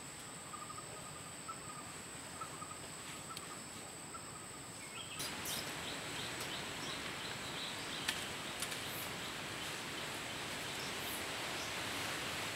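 Outdoor undergrowth ambience: a steady high insect buzz with faint repeated chirping. About five seconds in, a louder even hiss sets in, with scattered small rustles and clicks.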